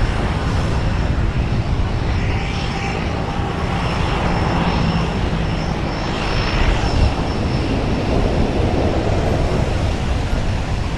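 Twin-turboprop engines and propellers of a de Havilland Canada DHC-6 Twin Otter running as it moves away low over the runway, the pitch falling as it goes. Near the end a Cessna 208 Grand Caravan's single turboprop is heard taxiing.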